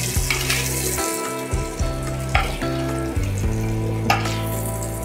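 Pork tenderloin fillets sizzling in butter in a hot skillet as they are lifted out with metal tongs. A few clicks of the tongs against the pan come about a third of a second in, about halfway through and near the end.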